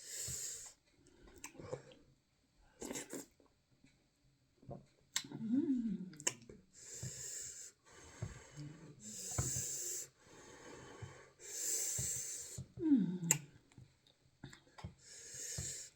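Close-miked eating sounds from a mukbang of fufu: about five hissing slurps or sucking breaths, each about a second long, with smaller chewing and mouth clicks between them.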